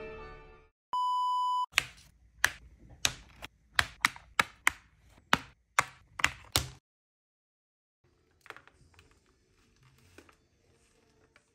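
Background music fades out, then a short steady electronic beep sounds. After it come about a dozen sharp snips from small scissors cutting the thin plastic ties that hold Barbie dolls to their box backing. After a brief silence there are faint handling sounds.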